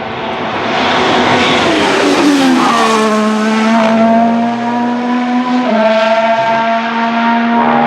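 Alpine A523 Formula 1 car's turbo V6 engine, louder as it comes close. Its note falls steeply about two to three seconds in, then holds a steady pitch that steps slightly about two thirds of the way through.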